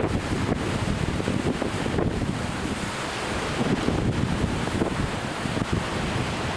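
Strong wind buffeting the microphone in gusts, over the wash of surf on the beach.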